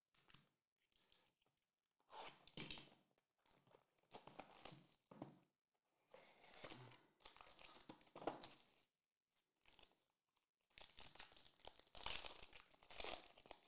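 Packaging of a trading-card hobby box being torn open and the foil wrapper of a card pack crinkled and peeled off by hand. Several bursts of tearing and crinkling with short pauses between, the longest near the end.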